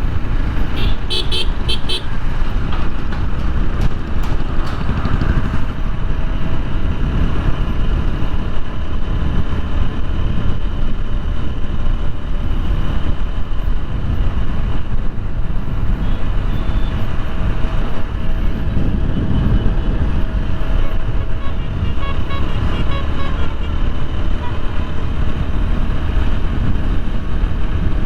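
Motorcycle riding through city traffic, with heavy wind rush on the helmet-mounted microphone throughout. Vehicle horns toot briefly about a second in and again a few times around twenty-two seconds in.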